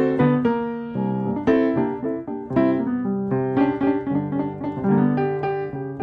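Piano music: notes and chords struck about twice a second, each ringing and fading.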